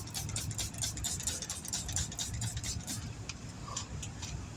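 A vehicle engine idling with a steady low hum, under a rapid high ticking of about eight clicks a second that thins out after about three seconds.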